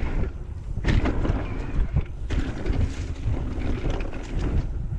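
Wind buffeting the action camera's microphone as a mountain bike is ridden fast along a dirt trail, with a few sharp knocks and rattles from the bike going over bumps.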